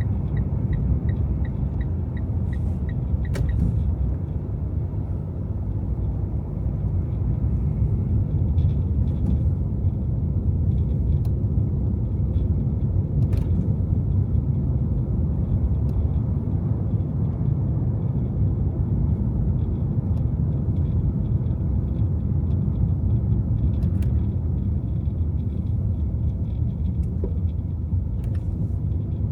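A car driving in city traffic: steady low road and engine rumble. A fast, regular ticking runs for the first three seconds or so, and a few single sharp clicks come later.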